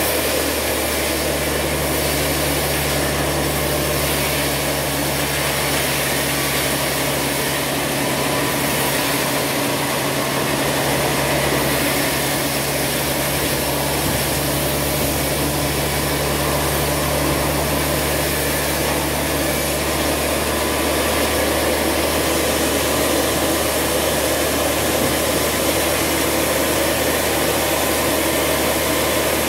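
Band sawmill running steadily while a large timber is fed past the blade: a constant machine hum with a rushing saw noise. One low tone in the hum drops out about twenty seconds in.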